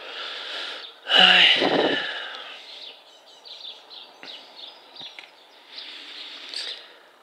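Outdoor background noise with small birds chirping now and then, and one louder pitched call that falls in pitch, starting about a second in and lasting about a second and a half.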